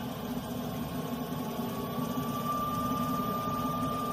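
Manrod MR-1218 benchtop wood lathe running with a large log blank on the spindle while its speed is turned up from about 800 to 1,000 RPM. A steady motor hum sits under a whine that rises slightly in pitch and grows louder about halfway through.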